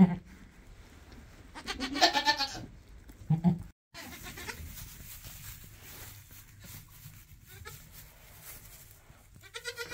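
A goat bleats once about two seconds in, a wavering call, followed by a short low call. After that, only a soft rustle in the straw bedding as the doe and her newborn kids move.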